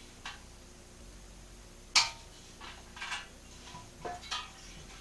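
Metal clinks and light clatter of tools and small hardware (bolts and washers) being handled and set down while parts come off a pit bike, one sharp clink about two seconds in and a few softer ones after it.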